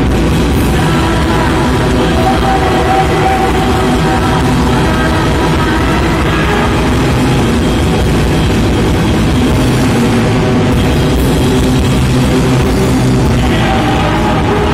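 Punk band playing live: loud, dense rock with electric guitars and a drum kit.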